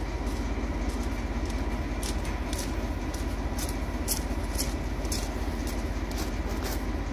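Class 14 diesel-hydraulic locomotive D9525's Paxman engine running steadily under way, with a steady whine over the low engine beat and scattered sharp clicks from the train.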